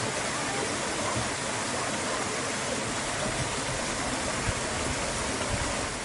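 Stream water flowing and splashing between large boulders: a steady rushing.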